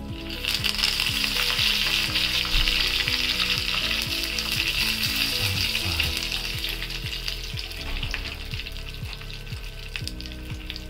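Curry leaves and mustard seeds sizzling in hot oil in a small pan, the tempering (tadka) for a chutney. The sizzle starts suddenly as the leaves hit the oil, then slowly dies down as dried red chillies join them.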